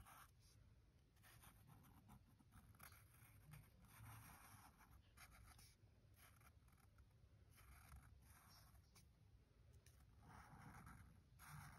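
Faint scratching of a felt-tip marker on sketchbook paper, in short strokes one after another as an area is colored in.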